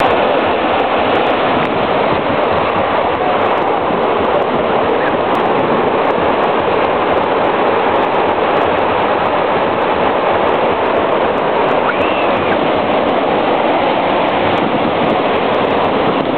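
Steady, even noise of surf and wind on a beach, holding level without a break.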